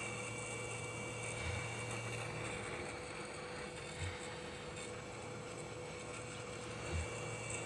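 Hot air rework station blowing steadily while reflowing a phone motherboard: a steady rush of air with a low hum and a faint high whine, with three soft low bumps about 1.5, 4 and 7 seconds in.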